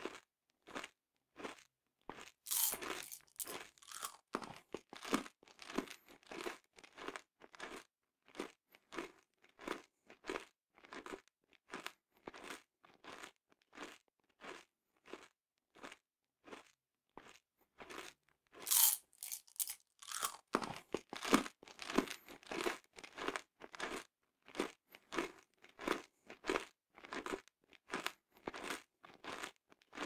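Close-up mouth sounds of peanut M&M's candies being chewed: the sugar shells and nuts crunching at about two chews a second, with a louder, sharper crunch about two and a half seconds in and again near nineteen seconds as fresh candies are bitten.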